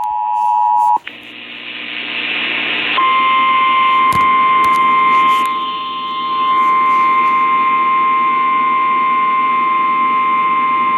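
Emergency Alert System alert tones: a brief chord of steady tones, then a rising hiss, then from about three seconds in a long, loud, steady single-pitch attention tone. The tone signals that a broadcast flash flood warning is about to follow.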